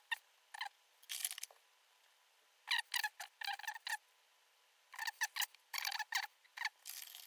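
Cotton wool bud rubbing back and forth over a Walkman's small screen to clean off fingerprints, in short squeaky, scratchy strokes that come in bursts.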